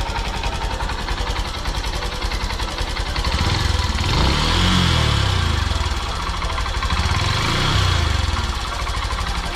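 Honda motorcycle engine running as it is ridden, the revs rising and falling twice, carrying an odd noise that the rider finds strange and cannot place.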